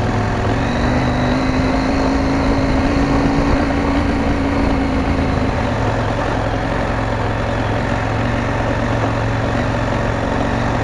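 KTM 790 Adventure's parallel-twin engine running steadily at low revs, the motorcycle moving slowly over a dirt track. Its note holds steady with a slight rise and fall.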